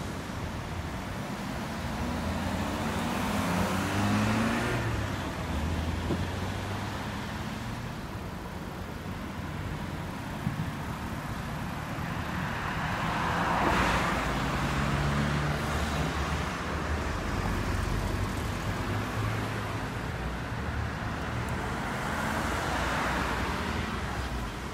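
Cars driving past at a road junction, each pass a swell of tyre hiss and engine hum over steady traffic noise. The loudest passes come about four seconds in, near the middle and near the end.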